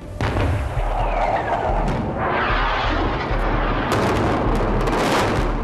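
Battle sounds at night: a dense, continuous rumble of explosions, with a faint falling whistle a little after a second in and a cluster of sharp gunfire cracks around four to five seconds in.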